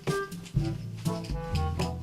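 Instrumental music with held notes and a steady drum beat.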